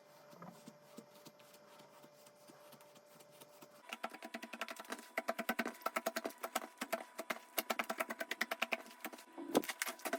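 Slime being squeezed and worked by hand: faint sticky sounds at first, then from about four seconds in a rapid, crisp run of clicks and pops as air pockets in the slime burst.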